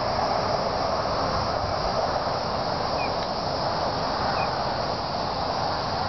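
Steady rushing noise, with two short faint chirps about halfway through.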